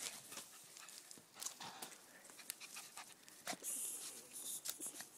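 Jack Russell terrier panting close by, with scattered short rustles and clicks as it moves through grass, and a brief hiss about three and a half seconds in.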